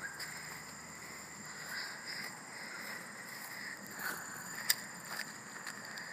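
Faint outdoor background with a steady high-pitched whine or trill, scattered soft ticks, and one sharp click about three-quarters of the way through.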